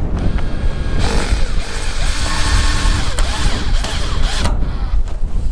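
Cordless drill-driver running for about three and a half seconds, starting about a second in, as it drives a screw at the edge of a corrugated steel roof, over a steady low rumble of wind on the microphone.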